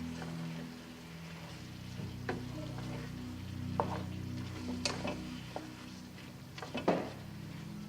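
Pan of pork igado sizzling as it cooks while a spoon stirs it, with several sharp clinks and scrapes of the utensil against the pan.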